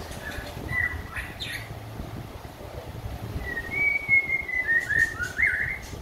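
White-rumped shama singing: a few short whistled notes, then about halfway through a longer phrase of clear whistles that slide down in pitch, loudest near the end. The bird is coming back into song after finishing its molt.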